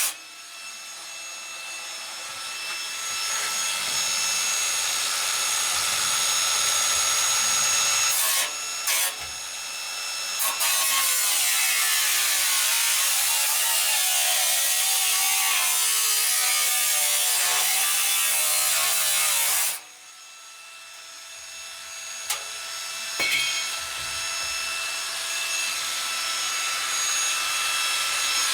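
Power tool cutting the stainless-steel inner drum of a drum washing machine, with a steady whine under a harsh cutting noise. The cut breaks off suddenly at the start and again about two-thirds of the way through, then builds back up each time.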